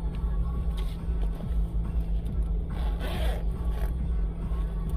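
A car idling, a steady low rumble heard inside the cabin, with a brief noise about three seconds in.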